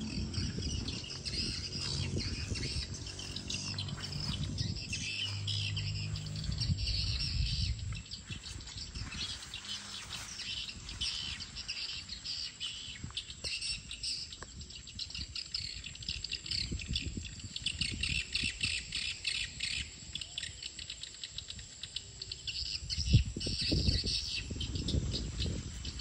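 Swiftlets chirping: a dense, continuous stream of rapid high twittering calls from a large flock. A low rumble sits under the first third, and there is a single thump near the end.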